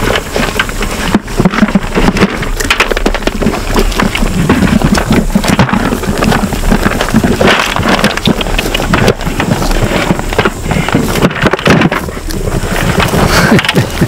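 St. Croix sheep crowding a metal feed tub close to the microphone, crunching feed pellets and jostling: a dense, irregular crackle with scattered knocks.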